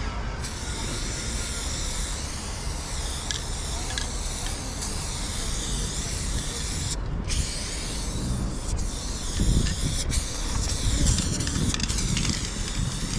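Aerosol spray paint can hissing in long bursts as paint is sprayed onto a wall, with a short break about seven seconds in and a few brief cut-offs after.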